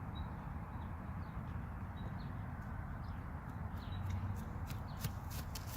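Steady low background rumble with faint short chirps every second or so, and a quick run of light clicks near the end, typical of footsteps coming back.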